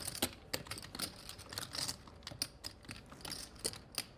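Poker chips clicking together as they are handled and shuffled at the table: a rapid, irregular run of light clicks.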